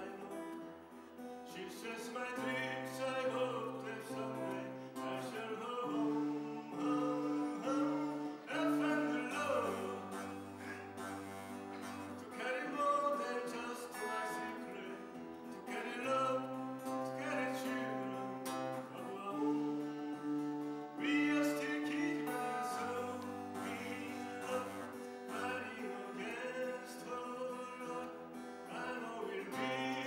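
A man singing a song to acoustic guitar, with held bass notes underneath that change every couple of seconds, amplified through the hall's PA.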